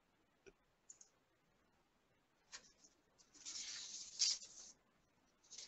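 Near silence with a few faint clicks, then a soft hissing rustle about three and a half seconds in that lasts roughly a second.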